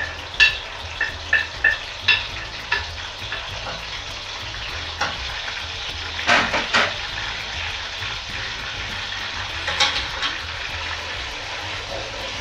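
Yogurt-marinated minced meat sizzling as it fries in hot oil with browned onions in an aluminium pot, with a steady frying hiss. A run of sharp ticks comes in the first few seconds, and a wooden spoon knocks against the pot about six seconds in and again near ten seconds.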